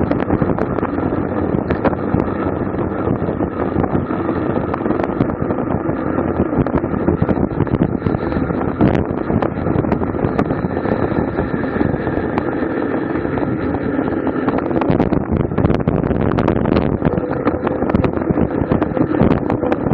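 Wind rushing and buffeting over the microphone of a camera mounted on a racing bicycle at speed: a steady loud rush with constant fluttering.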